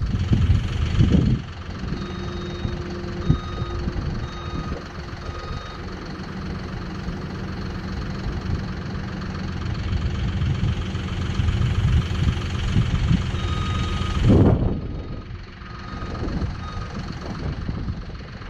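Skid steer and tractor engines running, with a backup alarm giving two short runs of evenly spaced beeps.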